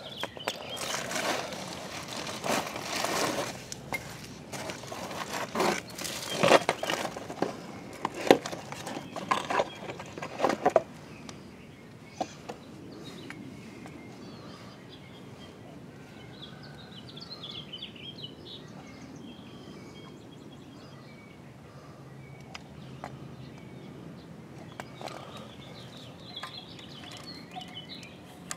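Clinks, knocks and clatter of metal parts and tools being handled while a small engine's carburetor is swapped, busiest over the first ten seconds or so. After that comes a low, steady background with a few faint high chirps.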